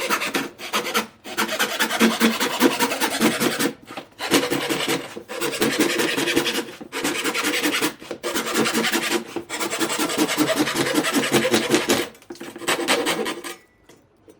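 A hand tool being worked hard against wood flooring, making loud rasping strokes in repeated stretches of one to three seconds with brief pauses between them.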